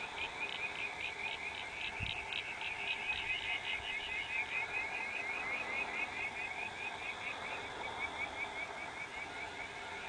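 Frogs calling in chorus: fast runs of short, repeated high notes, many a second, over a faint even background, with one brief low thump about two seconds in.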